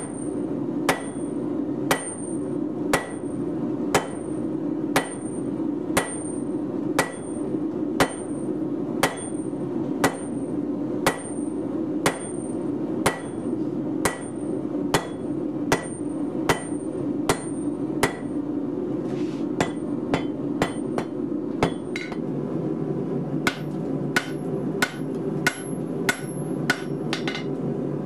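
Hand hammer striking a glowing hot steel block on an anvil, with even blows about once a second, each with a short metallic ring. Near the end the blows come quicker, about two a second. A steady low rumble runs underneath.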